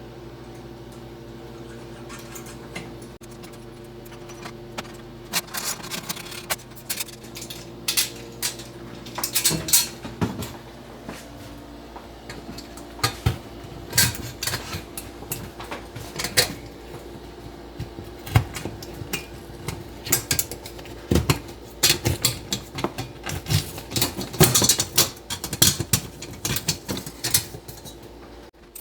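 Irregular metal clinks and knocks as a steel microwave mounting bracket and its toggle bolts are handled and fitted to the wall, starting about five seconds in, over a steady low hum.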